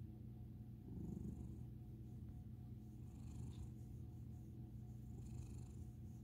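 An orange tabby American Ringtail cat purring softly and steadily as its chin and cheek are rubbed, a content purr that swells briefly about a second in.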